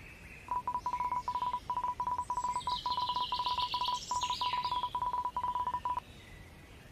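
Rapid electronic beeps at one steady pitch, in four quick runs with short breaks, with fainter higher sliding chirps over the middle runs.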